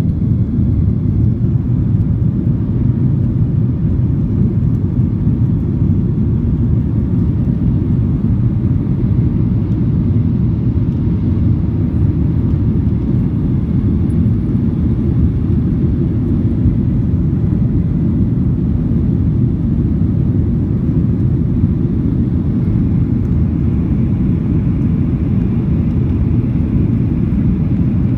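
Airliner cabin noise: a steady, loud, low drone of jet engines and airflow heard from inside the plane, holding an even level and pitch throughout.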